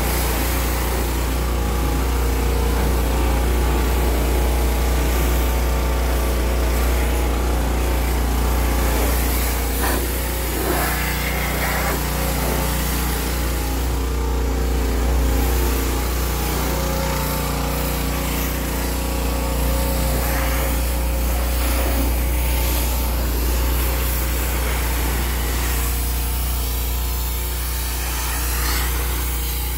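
Pressure washer running steadily, its wand spraying water onto a car's bodywork: a constant low motor hum under the hiss of the spray.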